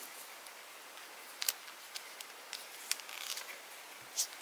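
Small plastic toy parts being handled and snapped together, giving a few scattered light clicks and taps over faint room hiss.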